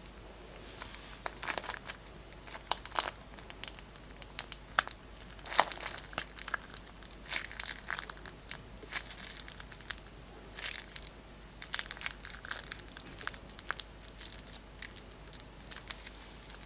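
Slime being handled and squeezed, giving irregular crinkling, crackling clicks and pops.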